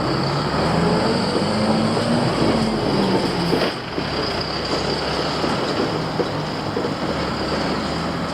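Tobu Railway electric commuter train passing over the level crossing: a steady rumble of wheels on the rails, with a low motor whine that rises slightly in pitch and fades out about halfway through.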